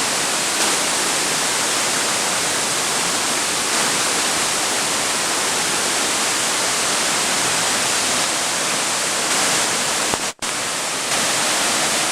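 Kaminari Falls waterfall: a steady, dense rush of falling water, cut off for a moment about ten seconds in.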